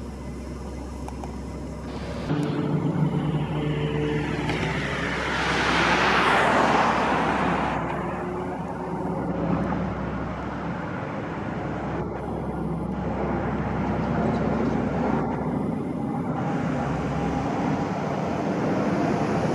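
Street traffic: cars driving past, with one vehicle passing close and loudest about five to seven seconds in.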